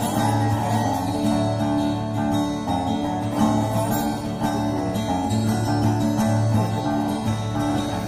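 Background music: a tune played on plucked strings.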